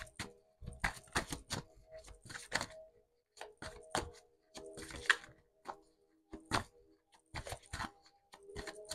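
Deck of tarot cards being shuffled by hand: irregular soft clicks and snaps of cards against each other, a few a second, with short gaps.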